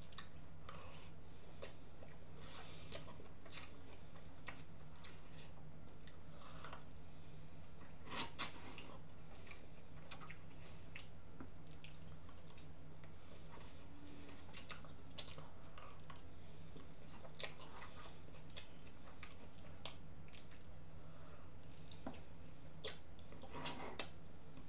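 A person eating from a bowl close to the microphone: chewing, with irregular short clicks of a spoon against the bowl, over a steady low hum.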